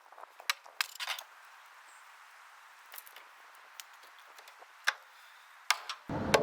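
Scattered sharp metallic clicks and taps of hand tools working on stuck firewall bolts, about eight over several seconds. About six seconds in, a louder steady noise starts.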